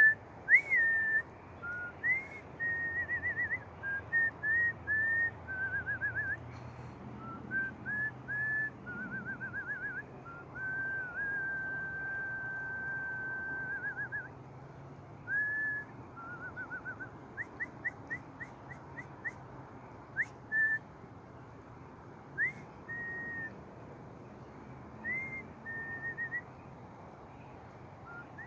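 Whistling in a string of varied single notes: short swoops up and down, quick warbling trills, one long steady note held for about three seconds near the middle, and a fast run of rising chirps a little later, with uneven gaps between phrases.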